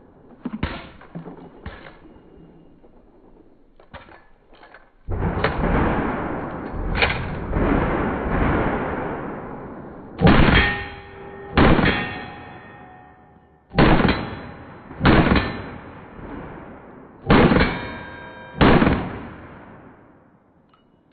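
Glock 19 pistol shots played back slowed down from slow-motion video: six shots in three pairs, each a drawn-out boom followed by the ring of a struck metal sign. Before them come a few softer knocks and a long rumbling noise.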